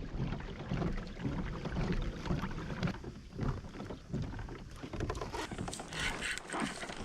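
A kayak on the water: uneven water sloshing against the hull and knocks of handling, with some wind on the microphone.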